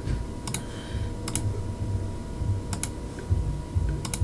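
A few separate clicks on a computer, about four in all, each a quick double tick, spread out while a web search is being done.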